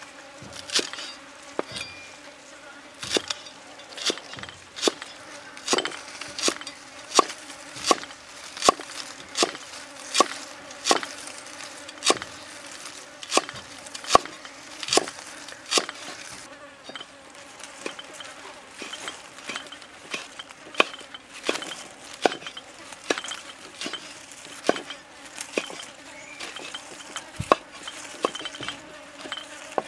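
Cleaver chopping green onion stalks and chillies on a wooden chopping block: even, sharp strokes a little over one a second, lighter and less regular in the second half. A steady buzzing hum runs underneath.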